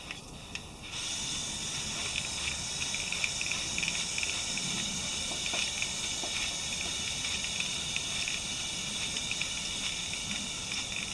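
Aerosol chain lube spraying onto a motorcycle drive chain: a long steady hiss that starts about a second in and holds on, with faint light ticks through it.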